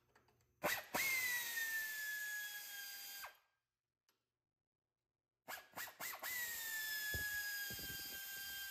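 Air ratchet backing out the cover bolts in two runs of about two and a half and three seconds. Each run is a steady whine that sags slightly in pitch, preceded by a few short trigger blips.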